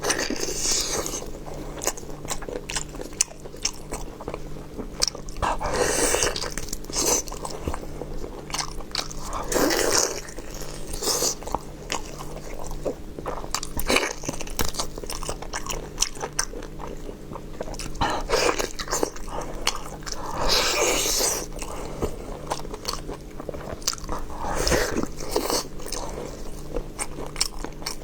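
Close-miked eating: chewing with many wet mouth clicks and smacks, broken every four or five seconds by a louder, longer bite.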